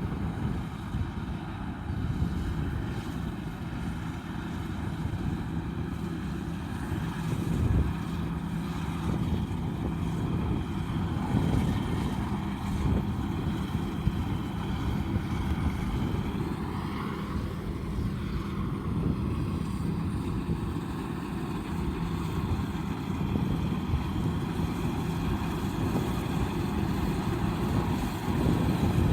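Combine harvester's diesel engine running steadily at working speed, with a brief dip and rise in pitch a little past halfway.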